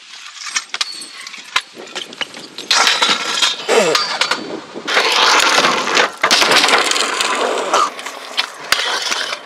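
Stunt scooter wheels rolling over concrete, with a string of sharp clacks and scrapes from tricks and landings; the loudest rolling runs from about five to eight seconds in.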